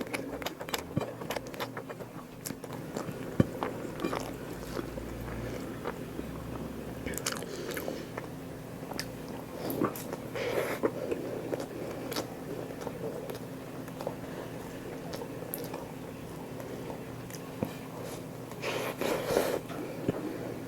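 Close-miked eating: chewing and biting with crunching and wet mouth sounds, busier about ten seconds in and again near the end, over a faint steady hum.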